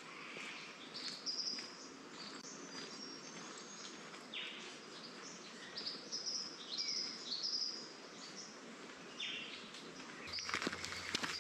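Wild birds calling: many short high chirps and a few lower, downward-sweeping notes over a steady background hiss. Footsteps start near the end.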